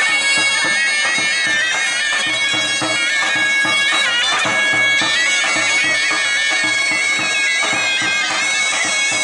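Zurnas, Azerbaijani double-reed folk pipes, playing a lively folk tune over a steady held drone, with a large drum beating a rhythm underneath.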